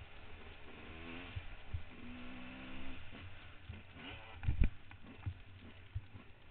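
Trail motorcycle engine running, its note wavering and then holding steady, with scattered knocks and one louder thump about four and a half seconds in.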